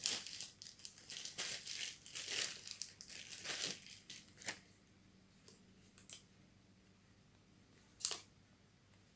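Thin clear plastic bag crinkling as it is pulled off a pair of headphones, for about four seconds. Then a few separate light clicks as the bare headphones are handled, the sharpest one near the end.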